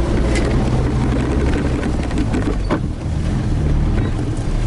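Toyota Hilux engine running at low speed, heard from inside the cab, with short knocks and rattles as the truck jolts over rough off-road ground.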